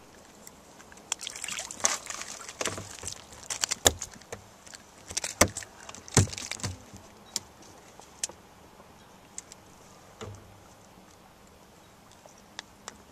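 Lake water lapping and slapping against the hull of a small boat, with irregular sharp knocks and clicks, busy in the first seven seconds and only a few after.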